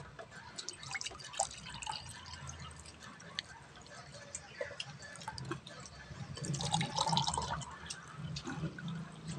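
Scattered small clicks, smacks and rustles of people eating with their hands from a banana-leaf spread, with a louder stretch about seven seconds in.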